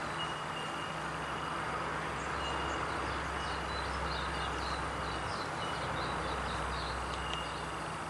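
Steady outdoor background hiss with the low rumble of a distant vehicle, which builds about a second in and eases near the end. Faint, short, high chirps repeat through the middle.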